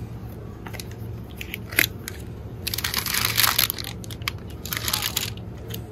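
Crinkling, crunching handling noise: a few sharp clicks and two longer rustling bursts in the middle, over a steady low background hum.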